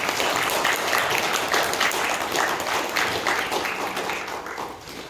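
Congregation applauding: many hands clapping steadily, then dying away near the end.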